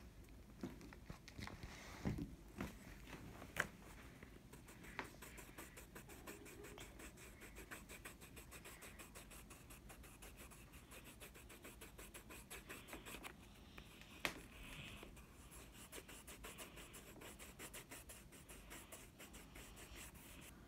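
Yellow colored pencil scratching on paper, colouring in with quick, even back-and-forth strokes, faint, with a few louder taps of the pencil.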